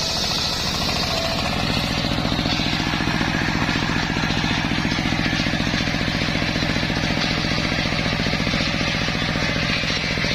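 Engine-driven homemade circular saw running steadily: the engine's rapid, even pulsing under a hissing higher band that strengthens about two seconds in.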